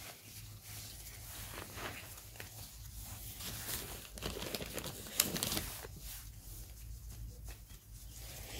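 Gloved hands working potting soil around a petunia in a plastic pot: faint rustling and crumbling of soil and leaves, with scattered light clicks and one sharper tap about five seconds in.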